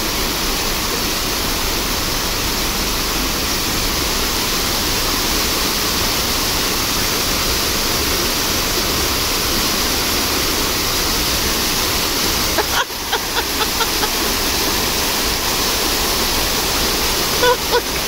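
Many vertical jets of a dancing water fountain rising and splashing down into the pool: a loud, steady rush of falling water that dips briefly about two-thirds of the way through.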